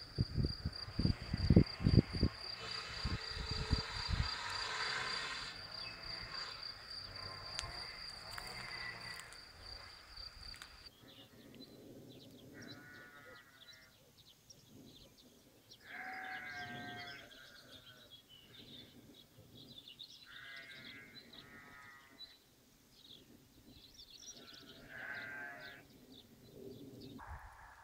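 Wind buffeting the microphone for the first few seconds. After a cut about eleven seconds in, a farm animal bleats several times, each call a wavering cry lasting one to two seconds.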